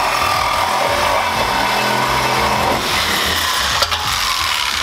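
Angle grinder cutting through a bolt that spins in place and so cannot be unscrewed. It runs loud and steady, with its pitch dropping in the second half.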